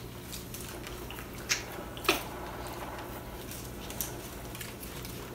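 Chicken wings being eaten by hand at a table: chewing and scattered small clicks and smacks, two of them louder about one and a half and two seconds in, over a steady low hum.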